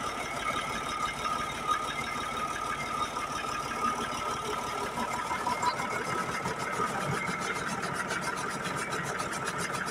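Tractor's diesel engine running steadily, with a steady high whine over it.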